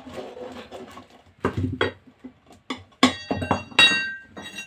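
Metal tyre levers knocking and clinking against a steel motorcycle wheel rim while a tyre bead is levered on: a few sharp knocks, the loudest two near the end, the last one ringing.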